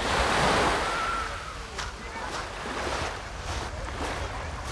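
Small waves washing up onto a pebble beach. The surge is loudest in about the first second, then settles into an uneven hiss of water over the stones.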